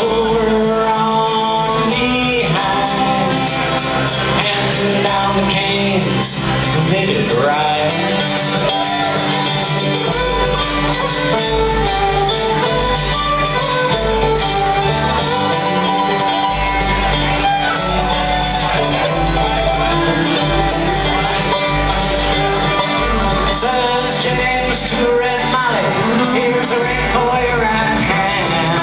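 Live bluegrass band playing an instrumental break, with banjo, acoustic guitar, mandolin and fiddle over a pulsing upright bass line that comes in stronger about a third of the way through.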